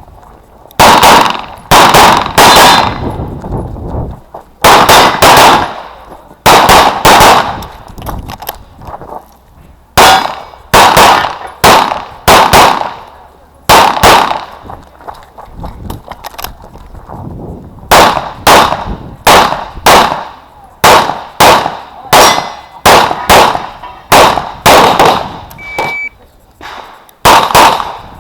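CZ Shadow 2 9mm pistol fired rapidly, mostly in quick pairs of shots, in strings broken by short pauses, each shot followed by a brief echo.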